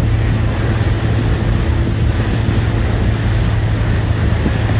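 Small water-taxi boat's engine running steadily under way, a low drone, mixed with rushing wind on the microphone and water noise from the hull.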